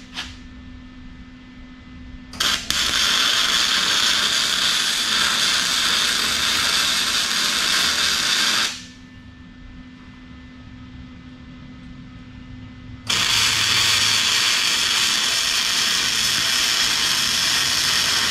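Wire-feed welder arc crackling and hissing as pipes are tack-welded into a steel rake frame: a brief burst about two seconds in, a run of about six seconds, a pause of about four seconds, then a second run to the end.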